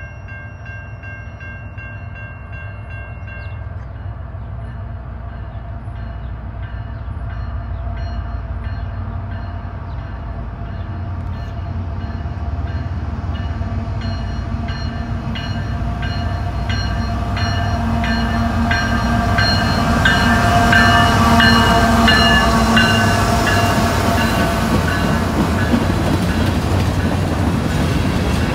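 Diesel locomotives of a freight train approaching and passing, growing steadily louder, with a grade-crossing bell ringing in evenly repeated strokes. Near the end the freight cars roll past with wheel clatter.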